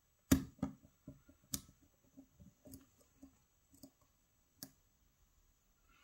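Lock pick clicking against the pins inside a pin-tumbler challenge lock: a few sharp clicks, the loudest about a third of a second in, with softer irregular ticks between.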